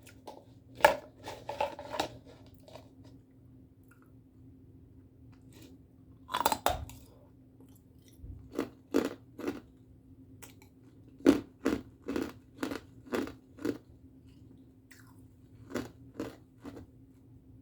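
Ice being bitten and chewed close to the microphone: sharp, loud crunches in clusters separated by short pauses, with one long crunching bite about six seconds in and runs of evenly spaced chews after it. A faint steady hum sits underneath.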